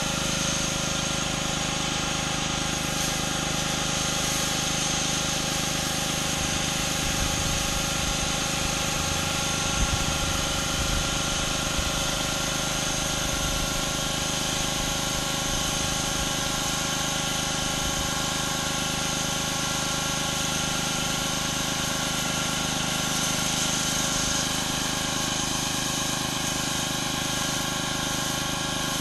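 Pressure washer running steadily: an engine drone under the hiss of high-pressure water spray.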